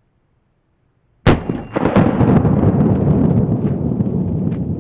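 A Glock 21 .45 ACP shot going off about a second in, a sharp crack followed by several seconds of loud low rumble with scattered crackles that fades only slowly.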